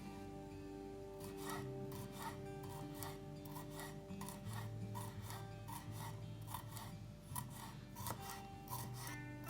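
Food rubbed on a hand grater: rhythmic rasping strokes, about three a second, over soft background music.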